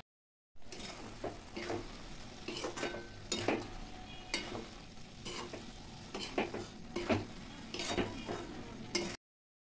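Metal spatula stirring grated coconut cooking in sugar syrup, scraping against the metal pan in quick repeated strokes, about two a second. The sound cuts off suddenly near the end.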